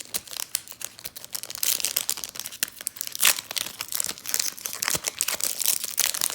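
Foil Pokémon booster pack wrapper being torn open and crinkled by hand: a dense, irregular crackling that grows busier about a second and a half in.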